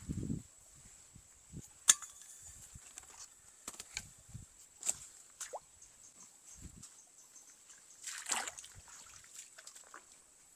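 Footsteps on a muddy stream bank and in shallow water, with scattered clicks and knocks. A sharp click about two seconds in is the loudest, and a short splash about eight seconds in.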